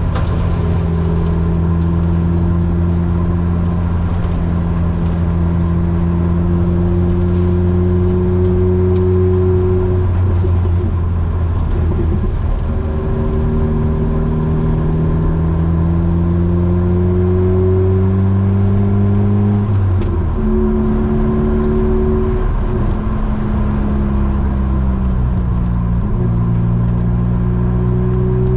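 Opel Speedster 2.2 four-cylinder engine with a Larini exhaust, pulling under load. Its note climbs slowly through each gear and drops at gear changes about ten, twenty and twenty-six seconds in.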